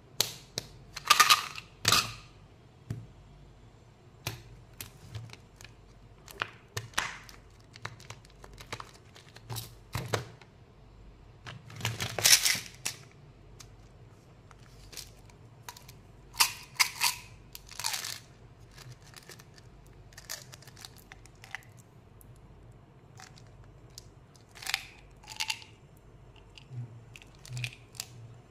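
Candy packaging being handled and opened by hand: a long run of scattered crinkles, clicks and short tearing sounds. The longest, loudest tearing comes about twelve seconds in.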